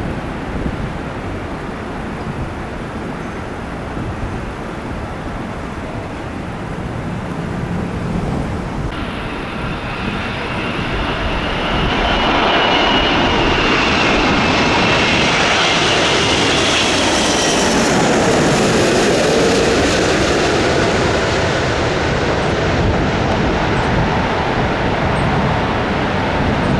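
Jet airliner's turbofan engines passing by: a steady rush that grows loud about halfway through, with a high whine that shifts in pitch as the plane goes past, then eases slightly.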